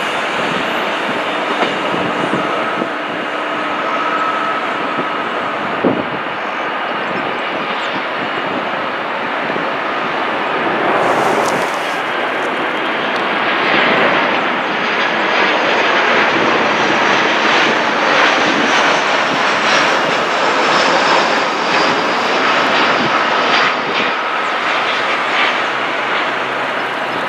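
Jet airliner engines coming in to land: a steady rushing that swells through the middle and eases near the end.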